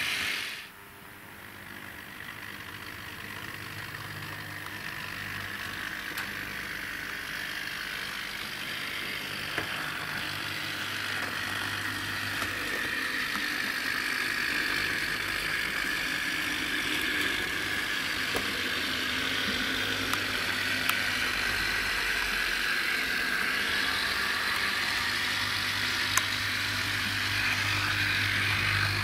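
Motor and gears of an H0-scale model tram running along the track make a steady whine whose pitch drifts slightly, with a low hum under it. It grows gradually louder, and a few faint clicks come from the wheels on the track.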